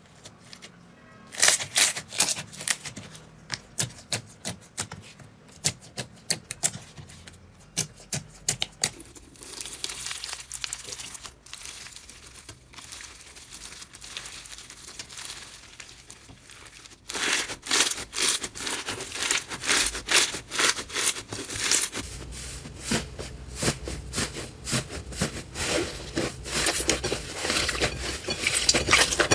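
Slime being squeezed and pressed by hands, giving crisp crackles and pops in quick irregular runs. The crackling is sparse at first, softer for a while in the middle, and turns dense and continuous about halfway through.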